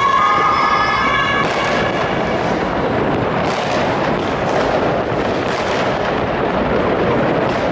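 German police two-tone siren (Martinshorn) sounding, then cutting off about a second and a half in. After that comes a dense din of fireworks, with many sharp bangs and crackles over a continuous rush of noise.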